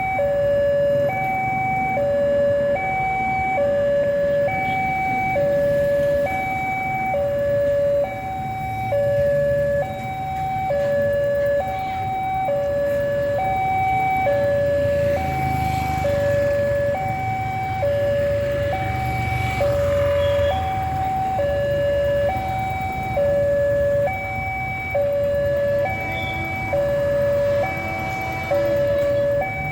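Railway level crossing warning alarm sounding a steady alternating two-tone electronic signal, a higher and a lower note taking turns over and over, the warning that a train is approaching and the gate is closed. A low rumble of road traffic runs underneath.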